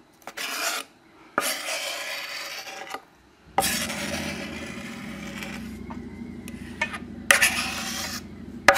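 A chef's knife blade scraped repeatedly across a wooden cutting board, pushing diced vegetables into a bowl: several long scrapes, each lasting a second or more, with short pauses between them.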